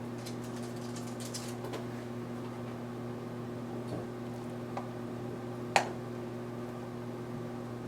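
Microwave oven running with a steady electrical hum, faint crackles and ticks from the food steaming inside, and one sharp click about six seconds in.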